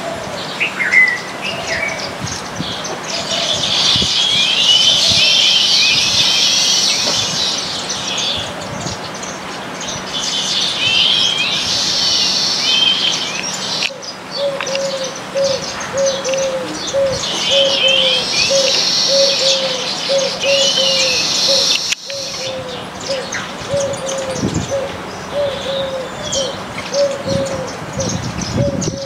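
A flock of baya weavers chattering in repeated bursts of high, busy calls. From about halfway a lower call note repeats steadily, about twice a second.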